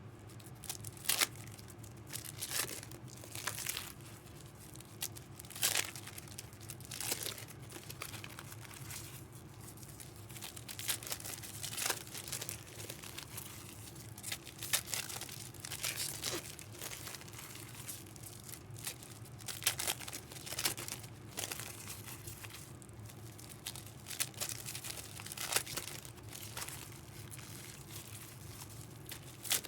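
Packaging wrap crinkling and rustling as it is handled, in short, irregular bursts over a low steady hum.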